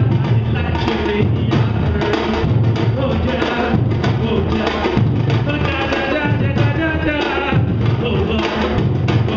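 Samba-reggae drum ensemble playing: surdo bass drums pound a repeating low pattern under timbau and repinique strokes. A man's voice sings or calls through the microphone at intervals.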